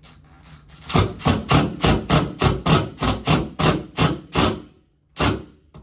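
Cordless screw gun driving a screw into the wall: a rapid run of about fifteen sharp knocks, roughly four a second, for about three and a half seconds, then one more knock shortly after.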